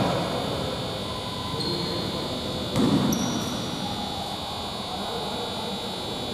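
Lull in a basketball game in a large gym with a hard, echoing sound: players' voices murmur faintly, and one thud about three seconds in is a basketball bouncing on the hardwood court.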